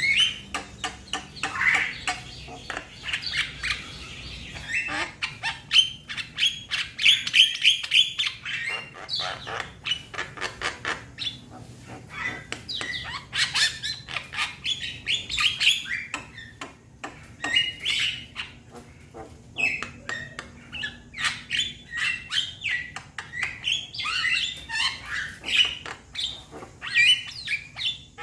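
Young Javan myna (jalak kebo) calling to its companions: a continuous run of rapid, harsh squawks, chattering notes and short chirps.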